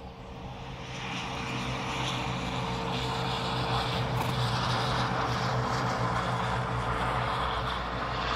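Steady engine drone that swells about a second in and then holds, a low hum under a wide rushing noise.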